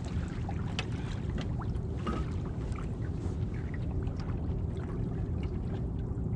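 Light water splashing and sloshing at a boat's side as a large blue catfish is held in the water for release, with a few small clicks and knocks, over a steady low rumble.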